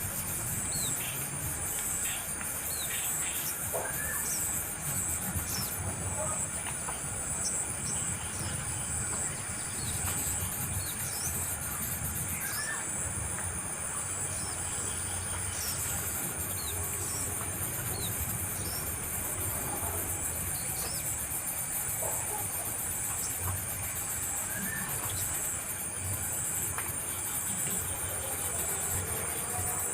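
Steady high-pitched drone of insects such as crickets or cicadas, with many short, rising bird chirps scattered throughout.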